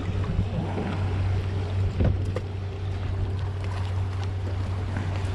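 Steady low hum of a fishing boat's motor at idle, over wind and water noise on the deck. A single sharp knock comes about two seconds in.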